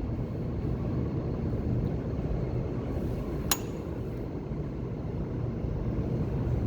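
Steady low rumble of subway station background noise, with a single sharp click about three and a half seconds in.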